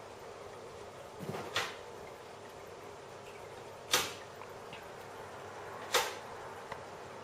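Three sharp knocks, about two seconds apart, over a steady low hiss.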